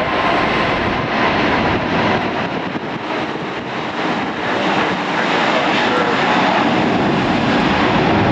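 Airliner's engines running, a loud steady rushing noise that grows a little louder near the end, with a faint high whine in it.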